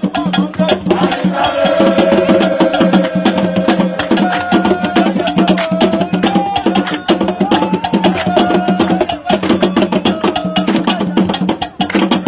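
Music with a fast, busy percussion rhythm of woodblock-like clicks and drums under a held melody line.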